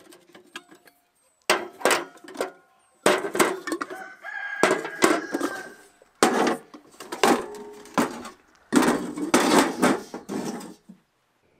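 Stainless steel pots and pans clanking and clattering as they are unstacked and set down upside down on a table, in about five bursts of knocks with short metallic ringing.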